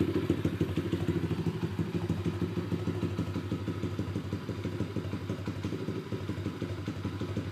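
RCM 125sx pit bike's 125cc single-cylinder four-stroke engine (a Honda-clone thumper) running steadily at idle, a rapid, even exhaust pulse with no revving.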